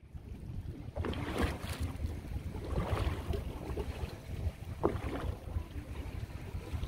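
Wind blowing on the microphone over choppy water, with several short splashes of waves.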